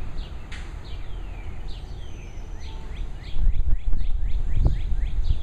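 A bird calls again and again with short chirps that slide down in pitch, over a low, uneven rumble outdoors that grows louder a little past halfway.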